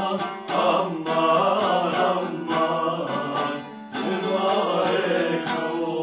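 Men singing a Turkish folk song to the strummed accompaniment of two bağlamas (long-necked saz lutes). The voice breaks off briefly a little before the four-second mark and comes back in.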